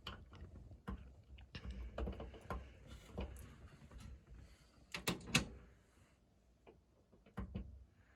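Irregular light clicks and knocks of hand work on small parts, with the loudest couple of knocks about five seconds in, then quieter.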